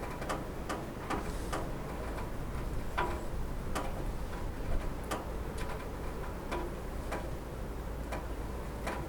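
Raindrops striking a roof: irregular sharp ticks, about two a second, over a steady low background noise.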